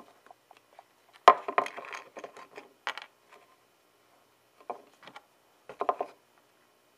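Hard plastic armor pieces being handled on a workbench: a sharp click about a second in, followed by a cluster of taps and rustling, another click about three seconds in, and more taps and clicks near the end.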